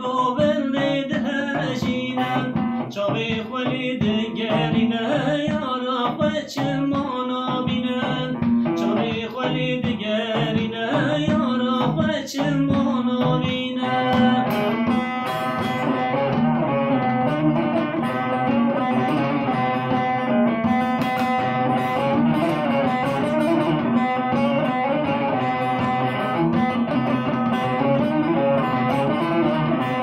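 Long-necked bağlama (saz) played with a plectrum: quick runs of plucked notes, turning about fourteen seconds in to a fuller, continuous strummed texture.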